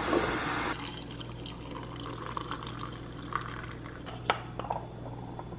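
Hot water poured from a kettle into a glass cup over a peppermint tea bag, a steady trickle. A few light knocks come near the end.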